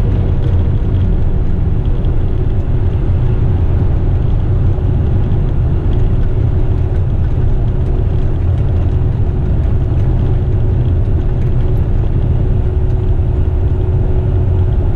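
Laden Western Star tipper truck cruising at highway speed, heard from inside the cab: a steady low engine drone and road rumble with a faint constant hum over it.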